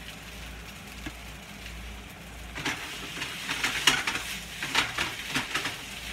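Shredded chicken sizzling in a hot frying pan. About two and a half seconds in, tongs start scraping and stirring through it in a run of short, sharp strokes.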